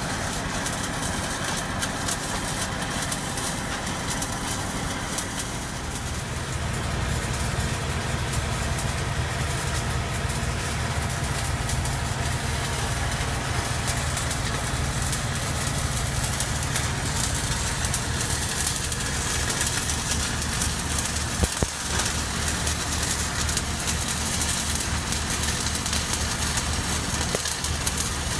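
Engine-driven welding machine on a pipeline rig running steadily, its low drone stepping up and growing stronger about six seconds in. Near the end a crackling hiss of stick welding rises over it as the arc throws sparks.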